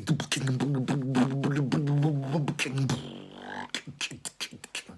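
Mouth beatboxing: quick percussive clicks and snaps laid over a held, buzzing hum whose pitch wavers, the hum dropping out about three seconds in and leaving sparser clicks.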